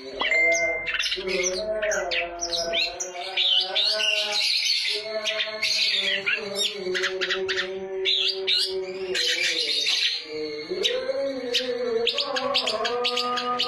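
Long-tailed shrike (cendet) singing: a fast run of short, high chirps and calls, over background music with held notes that slowly bend in pitch.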